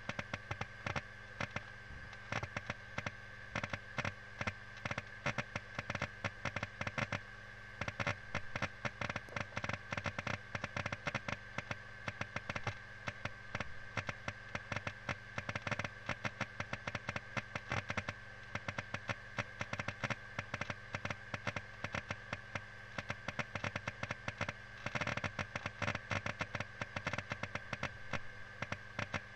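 LaCie 500GB 3.5-inch external hard disk clicking and crackling rapidly and irregularly during a large data copy, the read/write heads seeking, over a steady high whine. The noise is like fire crackers.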